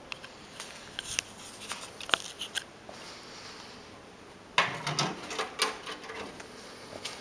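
Metal carrying case of a Homelite circular saw being handled. A few light clicks and taps come first, then just past the halfway point the case is opened with a burst of metallic clatter and rattling that dies away.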